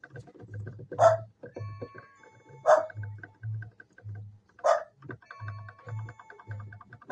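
A dog barking three times, sharp single barks about two seconds apart, over background music with a steady low beat.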